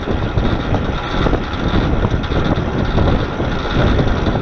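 Wind buffeting the onboard camera's microphone on a moving electric drag motorcycle: a steady, loud rushing with a heavy low rumble.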